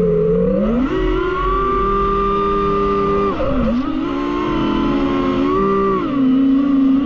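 DJI FPV drone's motors and propellers whining in flight. The pitch steps up about a second in, dips briefly midway and drops near the end as the throttle changes.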